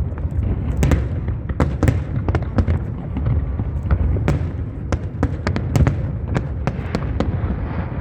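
Fireworks display going off: a continuous deep rumble of shell bursts with sharp cracks and bangs several times a second at irregular intervals.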